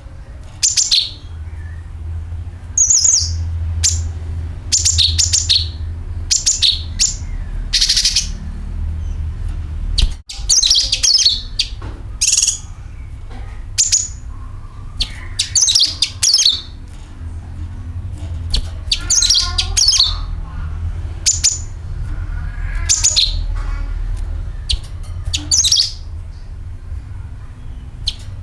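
Cucak kinoi songbird giving repeated short, high chirping calls and trills, about one burst every second, with a brief gap about ten seconds in. This is a lure recording of its call and 'nyeret' trill, used to draw other kinoi into singing. A steady low hum runs underneath.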